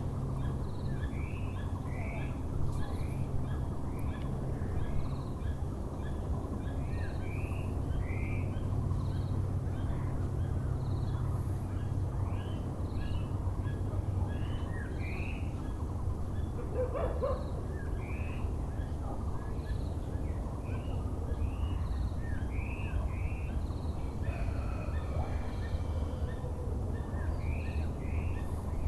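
Several birds chirping and calling with short repeated notes, over a steady low background hum of distant city noise.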